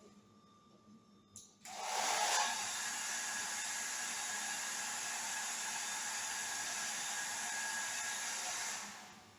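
Hair dryer switched on about one and a half seconds in with a click, running with a steady rush of air for about seven seconds, then switched off and winding down near the end.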